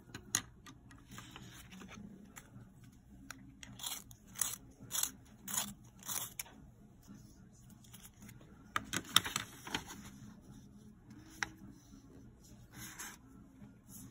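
Art materials being handled on a tabletop: short scraping and crunching sounds, about five in a row, two a second, then a denser cluster and a few scattered clicks, as the printed reference sheet is shifted and colored pencils are swapped.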